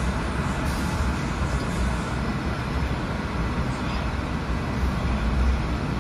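JFK AirTrain car running, heard from inside the car: a steady low rumble with even running noise.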